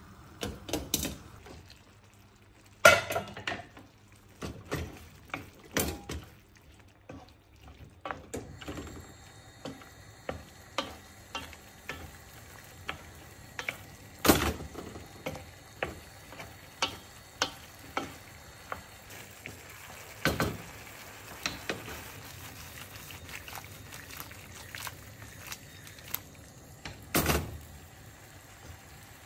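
A utensil knocking and scraping against a pan as food is stirred, in irregular clacks about once a second, over a faint steady sizzle of frying.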